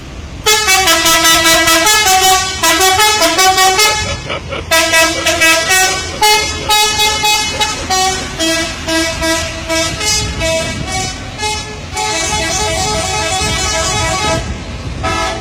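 Bus's multi-trumpet musical air horn (telolet horn) playing quick runs of short stepping notes in several loud phrases with brief breaks, ending in one short blast. A low rumble sits underneath.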